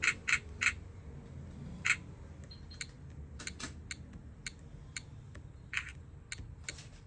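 Irregular light clicks and taps of fingers on a Graupner MZ-32 transmitter's touchscreen while a mode name is typed in, a few sharper clicks close together near the start.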